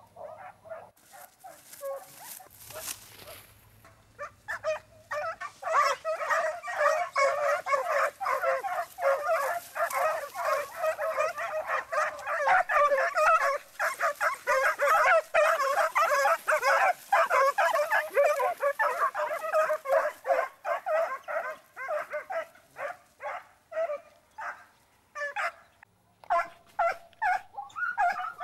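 A pack of hunting hounds giving tongue, with rapid, overlapping high yelps as they run a scent trail. The baying starts faintly, comes thick and fast from about five seconds in, and thins out near the end.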